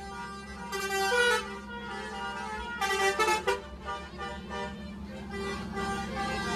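Multi-tone musical vehicle horn of the telolet kind, playing a tune of changing notes, with louder blasts about a second in and around three seconds.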